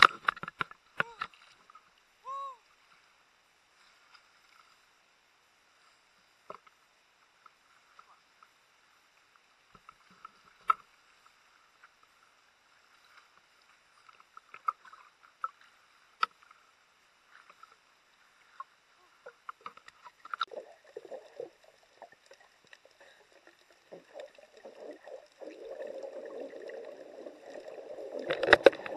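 Muffled water sounds heard through an action camera's waterproof case as it moves between the surface and underwater: long quiet stretches broken by scattered knocks and clicks, then a denser bubbling, sloshing rush of water near the end.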